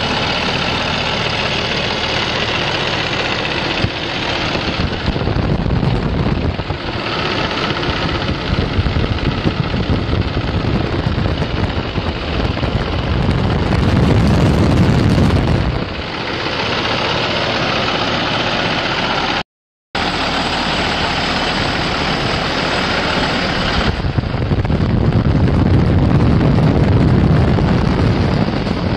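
The Cummins ISX15 six-cylinder diesel of a 2012 Peterbilt 388 semi truck idling steadily. The sound changes abruptly several times where takes are joined, with a brief dropout to silence about twenty seconds in.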